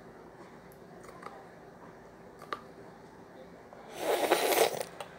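A faint click, then near the end a short, loud puff of breath close to the microphone.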